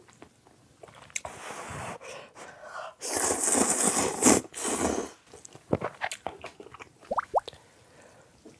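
A person slurping a big mouthful of instant ramen noodles in long noisy slurps, loudest from about three to five seconds in, then chewing with small wet mouth clicks.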